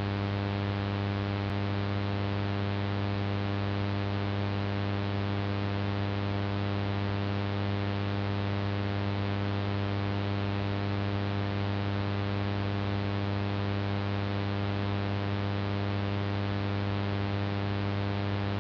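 Steady low electrical hum with many overtones, a flat unchanging buzz that starts abruptly as the preceding music cuts off.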